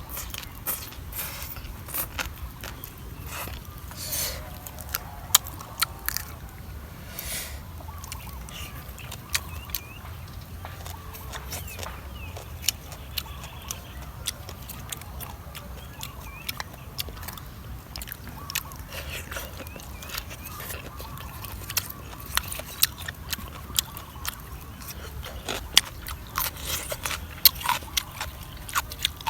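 A person chewing and biting crunchy green papaya salad, with crisp crunches and wet mouth clicks at irregular moments throughout.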